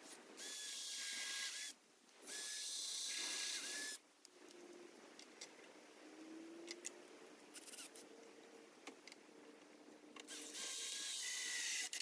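Power drill running in three bursts of one to two seconds, its whine dropping in pitch as each burst stops, with small clicks between the bursts.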